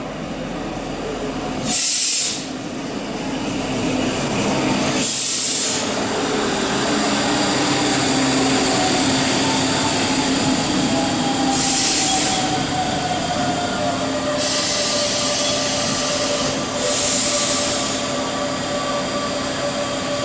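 A DB class 628 diesel multiple unit running past at close range, its underfloor diesel engine running, with wheel squeal and a slowly falling tone in the middle. Several short bursts of high hiss come about two seconds in, about five seconds in, and again later.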